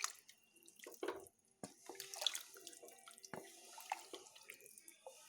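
Water being poured into a pressure cooker, faint and splashing irregularly.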